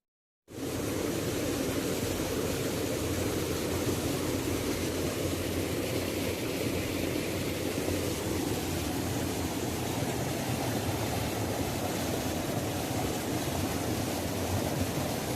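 Waterfall rushing, a steady, even roar of falling water that cuts in abruptly about half a second in after a brief silence.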